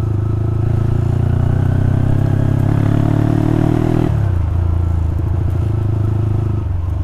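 Yamaha Scorpio's single-cylinder four-stroke engine under acceleration through a short aftermarket Creampie silencer. The exhaust note rises in pitch for about four seconds, drops suddenly at a gear change, then carries on pulling.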